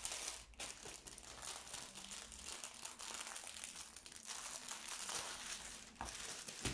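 Thin clear plastic packaging bag crinkling and rustling as it is handled and pulled off a rolled canvas, with many small crackles.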